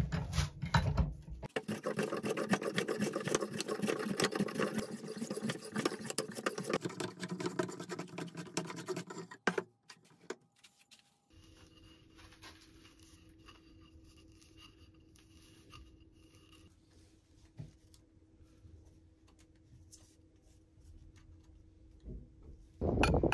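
Hand plane shaving a wooden shovel handle: rapid scraping strokes for about eight seconds, then the work stops and only a faint steady hum is left.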